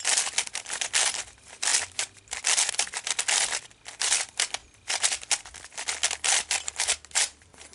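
A new QJ Candy 3x3 speed cube, a budget Oolong clone, being turned for the first time: quick runs of plastic clicking and clacking as its layers are spun, with short pauses between the runs.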